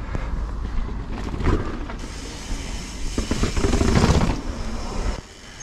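Mountain bike riding a rough trail: wind buffeting the camera microphone, tyres rumbling and the bike clattering over bumps. It is loudest about three to four seconds in and drops sharply just after five seconds.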